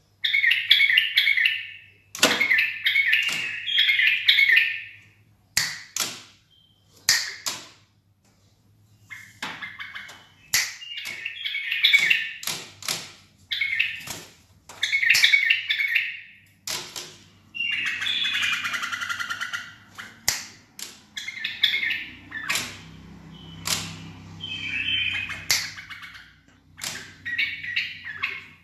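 A caged bulbul singing short, rapid warbled phrases again and again, with sharp clicks in between.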